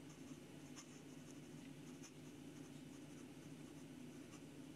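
Fountain pen nib (a Delike #5 nib on a Jinhao 51A) writing on lined notepad paper, giving a few faint, short scratching strokes over a low steady hum.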